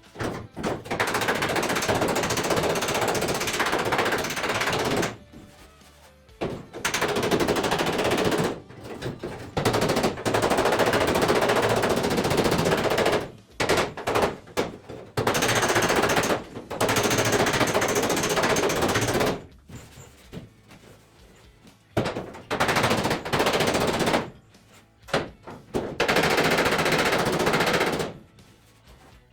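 MIG welder crackling in repeated runs, each lasting from under a second to several seconds, with short pauses between them while steel body panels are welded.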